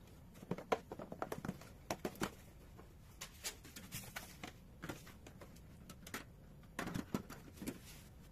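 Refrigerator compressor running with a faint, steady low hum just after being plugged back in, under irregular light clicks and taps.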